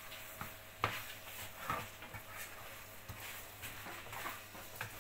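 A spoon knocking and scraping against a frying pan as food is stirred: a handful of short, irregular clicks, the sharpest about a second in.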